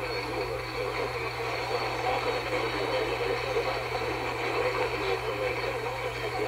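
AM radio reception of an Emergency Alert System monthly test broadcast: a steady hum and static with a muffled announcer's voice underneath.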